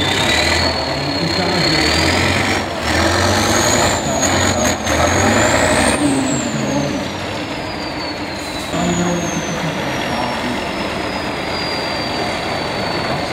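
Tatra 6x6 trial truck's engine working under load as it climbs through mud, with a high whine that rises through the first half and then falls away. A few short, sharp sounds come near the middle.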